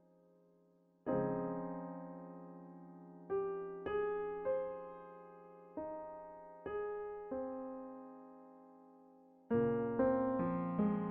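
Background music: a slow, gentle electric-piano melody, single notes and chords struck a few at a time and left to ring out.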